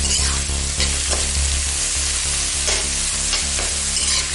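Julienned cabbage, carrot and capsicum sizzling in hot oil in a metal kadai, stir-fried with a steel spatula that scrapes and knocks against the pan every second or so.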